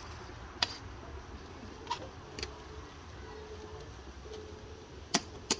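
A metal spoon knocking and clinking against the rim and side of a large aluminium cooking pot of rice and peas: a handful of sharp clinks spread out, the two loudest close together near the end, over a steady low rumble.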